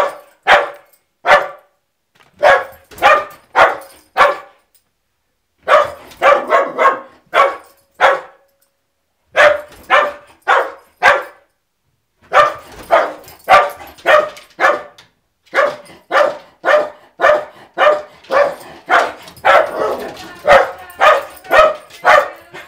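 Small white fluffy dog barking at the front door at the mail carrier: territorial alarm barking. Sharp barks come in rapid volleys of three to eight, with short pauses of about a second between volleys, the barks crowding closer together near the end.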